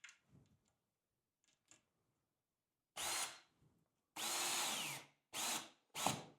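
Power drill driving two screws into the shower door's top hinge mount, run in four short bursts, the second the longest. Near the end of that longest burst the whine drops in pitch as the motor slows.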